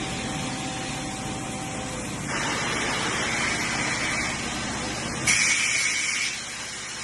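Steady hum of an automated machining cell's machinery. About two seconds in, a steady hiss of spray or air blow-off starts. Just past the five-second mark, a louder, sharper hiss with a thin whistle lasts about a second.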